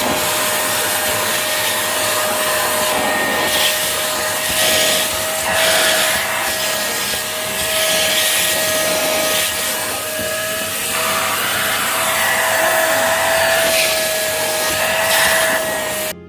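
Bolde Super Hoover vacuum cleaner running with its narrow crevice nozzle, a steady motor whine over rushing air that swells now and then as it sucks up dust. It cuts off abruptly near the end.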